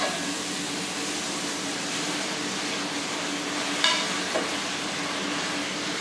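Spaghetti and cherry tomatoes sizzling in a frying pan as they are tossed with a wooden spoon and metal tongs, with a sharp knock of a utensil against the pan about four seconds in.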